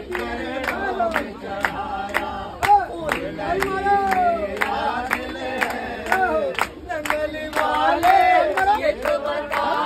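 A group singing a Hindi devotional bhajan together, led by a man's voice, with hand-clapping keeping a steady beat of a little over two claps a second.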